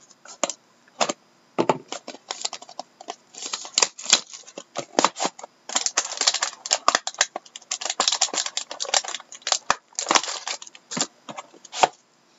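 A cardboard trading-card box being torn open and handled: a quick, irregular run of clicks, scrapes and rustles.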